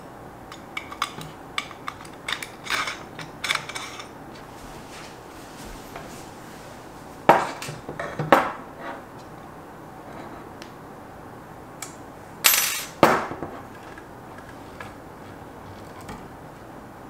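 Aluminium plates, extrusion and small steel screws being handled during assembly: a run of small metallic clicks and clinks in the first few seconds, then louder knocks of the metal parts twice near the middle and twice more later.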